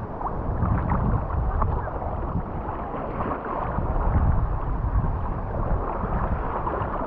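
Shallow ocean surf sloshing and lapping close to the microphone, with wind rumbling on the microphone.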